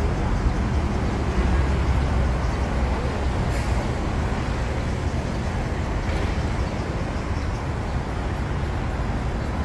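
Steady road traffic noise from cars and buses on a busy city street, a continuous deep rumble, with a short hiss about three and a half seconds in.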